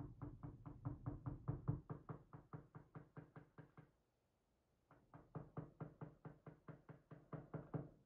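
Rapid light tapping, about five taps a second, in two runs broken by a short pause about four seconds in: a part of a disassembled pin-tumbler lock being tapped repeatedly on a pin tray.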